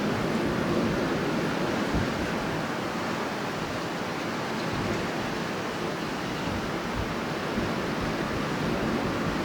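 Strong wind blowing steadily, a rushing noise that swells and eases slightly, with a few brief low buffets.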